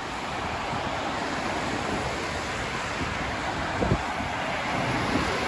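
Steady rushing noise of highway traffic passing below, with wind on the microphone.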